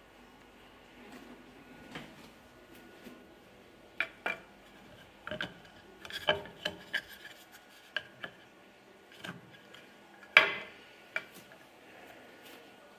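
A small hanging wooden sign being handled and flipped over on its post: scattered light wooden clicks and knocks with some rubbing, the loudest clack about ten seconds in.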